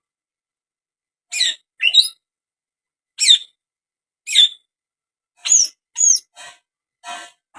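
Cucak ijo (green leafbird) giving a string of about eight short, sharp calls, some with quick sweeping high notes. The calls start about a second and a half in and grow fainter near the end.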